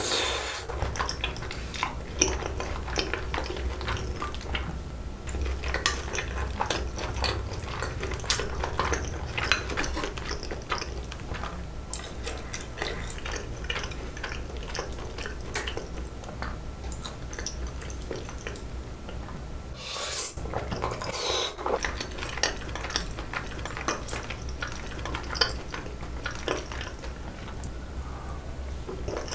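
Close-up eating sounds of spicy bibim noodles: slurping and chewing, with many small clicks of chopsticks and a spoon against a bowl. A steady low hum runs underneath.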